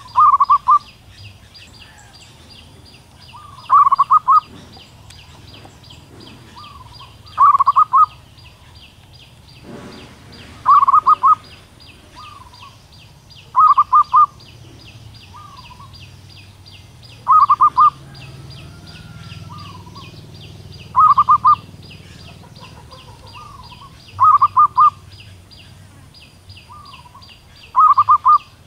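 Female zebra dove calling for a male: a quick burst of rippling coo notes about every three and a half seconds, with fainter notes in between.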